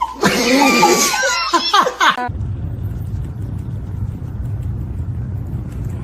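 A loud voice with sharply bending pitch for about two seconds, cut off suddenly, followed by a low steady rumble.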